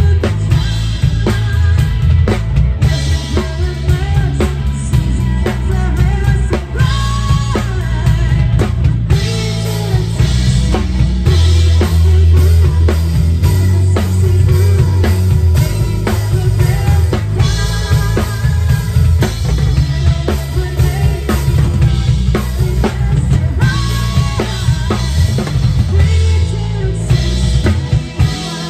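Live rock band playing: a woman singing lead over a drum kit, electric bass, keyboard and electric guitar, with the drums loudest.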